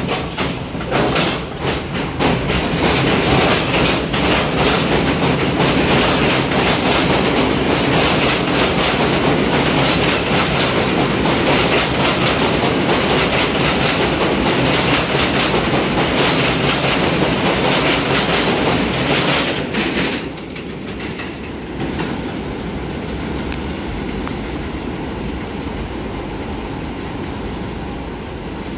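R62 subway train pulling out of the station and running past close by, loud, with rapid clacking of wheels over the rails. About two-thirds of the way through it drops suddenly to a quieter, steady rumble of a train running on the line.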